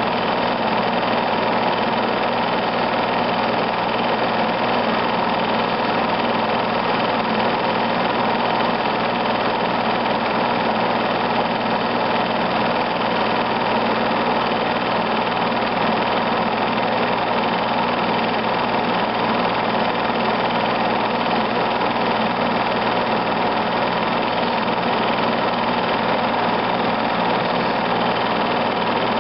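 Film projector running steadily: an even mechanical whir with a constant hum underneath.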